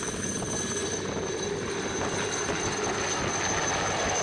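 Pakistan Army Alouette III helicopter flying close by: a steady high turbine whine over dense rotor and engine noise.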